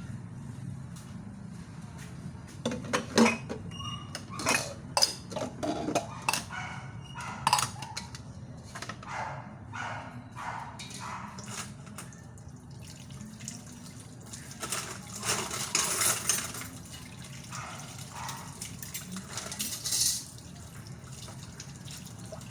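Dishes clinking and knocking in a sink, a quick run of knocks through the first half, then water splashing for several seconds.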